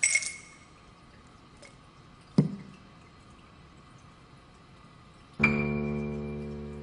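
Sparse music or sound design: a short bright clink, a short knock a couple of seconds later, then a chord struck about five seconds in that rings on and slowly fades.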